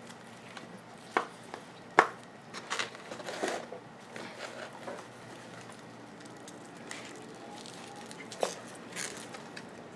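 Hands working plants and loose potting soil into a plastic pot: soft crumbling and rustling of soil and leaves with scattered sharp taps and knocks against the plastic, the loudest about two seconds in.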